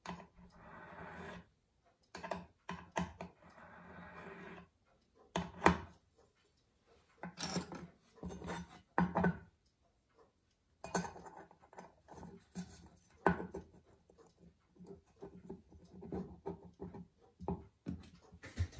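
Hand file rasping across a thin metal pocket-watch case ring in a few strokes, then light clicks and taps of the small metal case parts being handled and fitted together, with one sharper knock about six seconds in.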